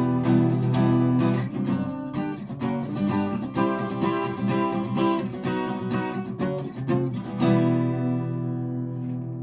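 Guitar strummed in a steady rhythm, ending about seven seconds in on a final chord that is left to ring and fade out.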